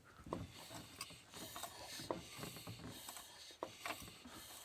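Scattered light clicks and knocks with rubbing, from a Volkswagen 1.4 TSI engine's metal parts being handled or moved by hand, coming at uneven intervals rather than as a running engine's rhythm.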